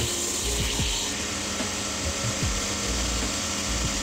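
Cobbler's finishing machine running, its abrasive sanding band grinding against the bottom of a leather shoe in a steady rasp over the motor's hum.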